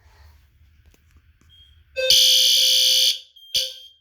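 Fire alarm sounding after a System Sensor i4 smoke/CO detector's test button is pressed on walk test. It gives one loud, high-pitched electronic blast about a second long, with a lower tone beneath it, starting about two seconds in, then a short second blast near the end.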